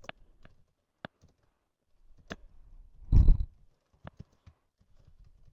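Scattered clicks from a computer mouse and keyboard, spaced irregularly up to a second or so apart, with one louder, short low thump about three seconds in.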